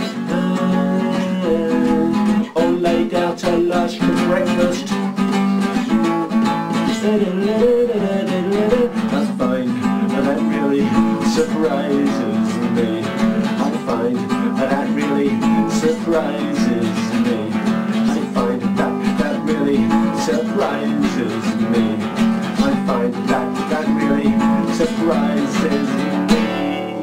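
Acoustic guitar strummed steadily through an instrumental passage of a song, the strumming stopping at the very end and leaving the last chord ringing.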